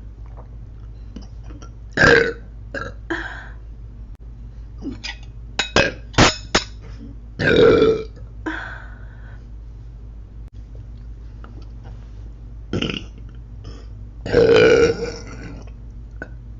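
A young woman belching three times, each burp long and loud, with short clicks and smaller mouth sounds between them.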